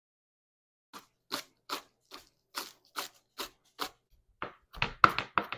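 A block of cheese rubbed down a box grater: eight short rasping strokes, about two and a half a second. About four and a half seconds in, a knife chopping scallions on a cutting board takes over, with quicker knocks, each with a thud.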